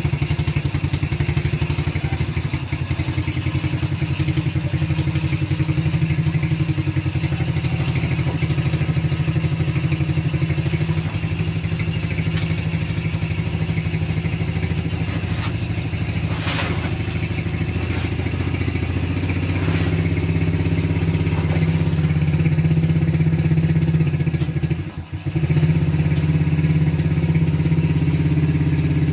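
ATV engine idling steadily, a little louder in the last third. One sharp click about halfway, and a brief drop in level near the end before the engine comes back to the same beat.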